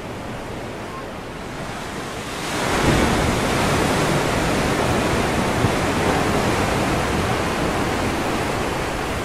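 Ocean surf: a wave breaks about two and a half seconds in and washes in loudly against a rocky shore, then slowly dies away.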